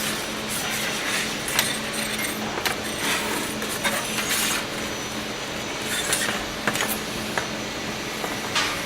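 Automatic channel letter bending machine working stainless steel strip: a steady motor hum with irregular metallic clicks and clinks.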